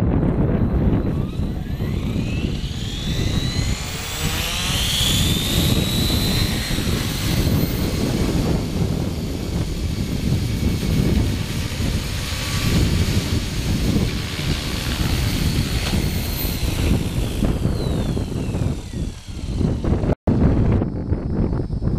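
Radio-controlled model helicopter spooling up, flying, then spooling down: its rotor and drive whine rises in pitch over the first few seconds, holds, and falls away near the end, over a rough low rumble. It is flying with the aileron gain on its flybarless gyro set too high.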